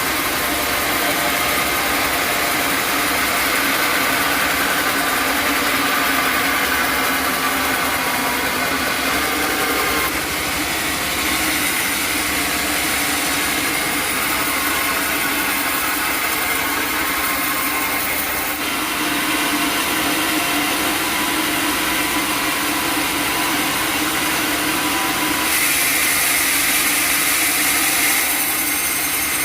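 Sawmill machinery running steadily with a steady hum and whine, its tone shifting suddenly a few times.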